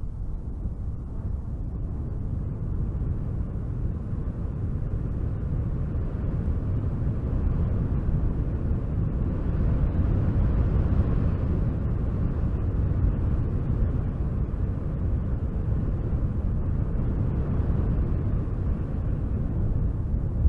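Wind blowing in a steady low rumble, gusting slightly stronger around the middle.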